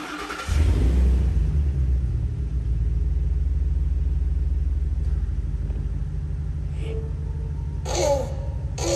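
Vehicle engine cranked and catching about half a second in, briefly revving up, then settling into a steady low idle.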